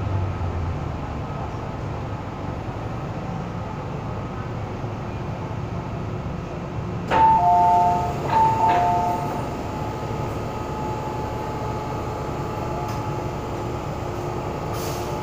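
Steady running rumble heard inside an MTR M-Train carriage. About seven seconds in there is a click, then a two-note electronic chime, high then low, played twice.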